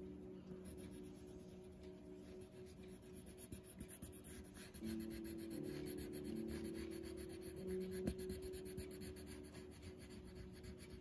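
Colored pencil scratching on paper in rapid small strokes, shading a colouring page, with soft piano music faintly underneath.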